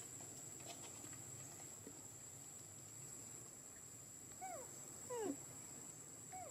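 A monkey giving three short calls, each falling in pitch, from a little past four seconds in; the middle call is the loudest and drops the furthest.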